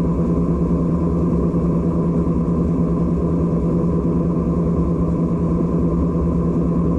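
John Deere 9500 combine running steadily under harvest load, a constant engine-and-machinery drone with a strong low hum and a fainter higher whine.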